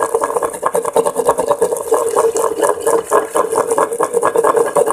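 Wooden pestle grinding almond kernels into a paste in a clay mortar: rapid, rhythmic rubbing and scraping strokes with no pause.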